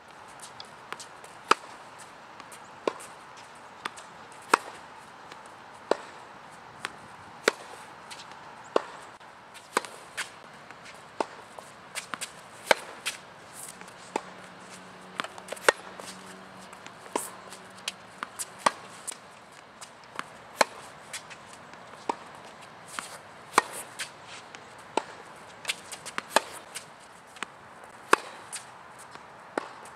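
A tennis ball hit back and forth with rackets on a hard court in a steady rally: sharp pops about once a second, with louder and softer hits alternating.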